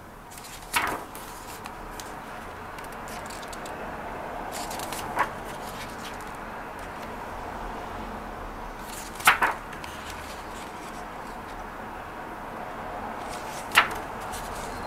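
Pages of a large hardcover photobook being turned by hand, each turn a brief swish, four times about four seconds apart, over a steady low background hiss.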